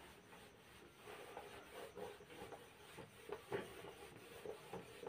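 Faint rubbing of a whiteboard being wiped clean: a series of short, soft swipes across the board.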